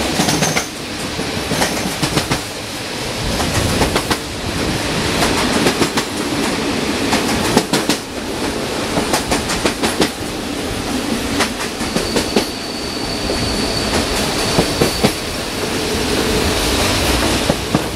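Bogies of a double-decker passenger coach rolling at speed over jointed track: a steady rumble with clickety-clack as the wheels strike the rail joints in quick groups. A thin, high wheel squeal rises over it for a few seconds past the middle.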